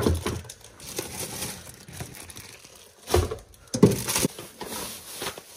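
Crinkling and rustling of food packaging being handled, in short bursts at the start and again about three to four seconds in.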